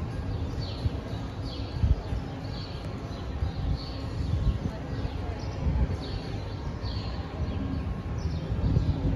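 Birds chirping over and over in short, falling calls, over a low outdoor rumble.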